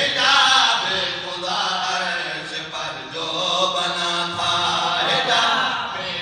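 A man chanting a Shia devotional qaseeda in praise of Hazrat Ali Asghar, in long held melodic phrases, into a microphone and amplified.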